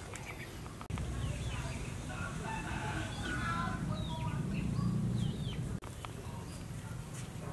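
Chickens clucking and calling over a low steady rumble. The sound grows louder about a second in and drops back near the end.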